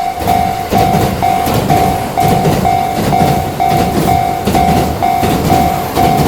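Japanese railroad crossing alarm ringing, a repeated electronic tone about twice a second, over the rumble and clatter of a passing train.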